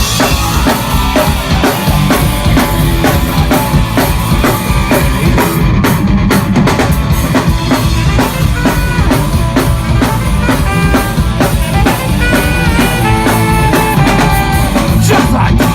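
Live rock band playing an instrumental passage at full volume: drum kit with kick and snare driving a steady beat under bass and guitars, with no vocals.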